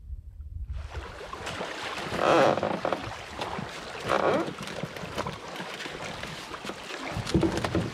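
Canoe paddle strokes splashing in lake water, about every two seconds, over steady wind noise on the microphone.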